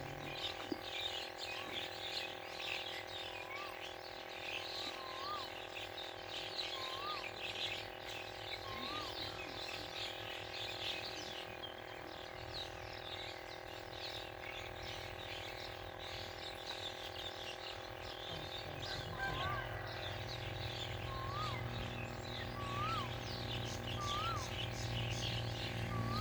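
Birds chirping densely, with one bird repeating a short rising-and-falling whistle about every second and a half. A low steady hum comes in about halfway through.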